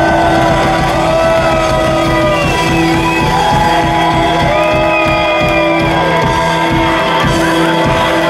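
A live rock band playing loudly: electric guitars and bass holding a chord over fast drumming, with a singer's voice and shouts from the crowd.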